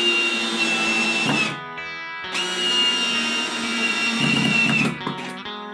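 Cordless drill driving screws into wood in two runs, each with a steady whine: one of about a second and a half at the start, then a longer one from about two seconds in. Background music plays underneath.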